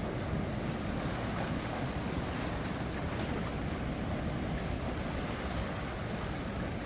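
Strong sea wind buffeting the microphone over the steady wash of high waves against a breakwater.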